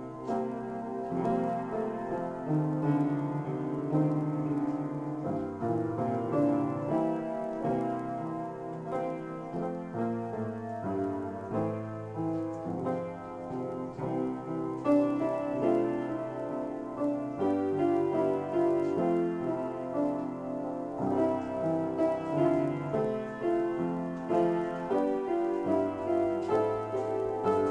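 Upright piano played solo: an improvised piece of sustained chords over bass notes, the harmony shifting every second or so.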